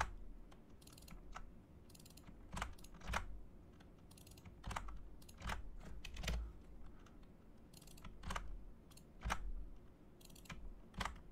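Computer keyboard keystrokes, scattered and irregular, one or two clicks at a time with short pauses between.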